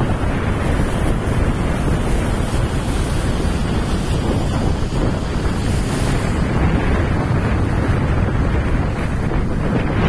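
Heavy ocean surf breaking and churning against a rocky shore, a steady wash of water noise, with wind buffeting the microphone.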